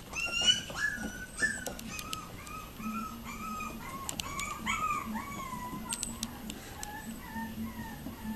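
Young Yorkipoo puppies yelping and whining as they play. The calls are loudest in the first two seconds, then go on as a string of softer, high yips and whimpers, with a few sharp clicks among them.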